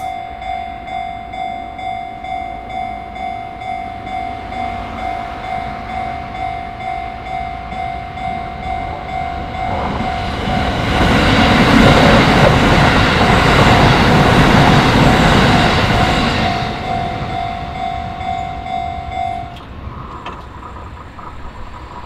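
Japanese level-crossing alarm ringing in a steady, rhythmic ding-ding. A Shin-Keisei electric commuter train passes over the crossing about halfway through, its loud rumble building and then fading. The alarm stops shortly before the end.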